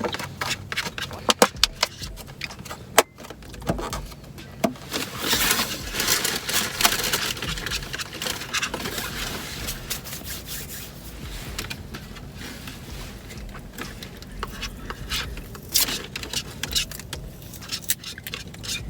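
Handling noise: scattered clicks and scrapes, with a stretch of rustling about five to ten seconds in.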